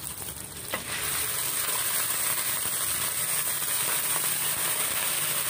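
Raw chicken pieces going into a wok of sautéing garlic and onion over a high flame, setting off a steady sizzle of frying from about a second in.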